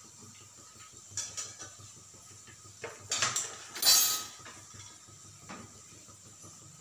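Steel kitchen utensils and dishes clinking and scraping in a few short clatters, the loudest about four seconds in.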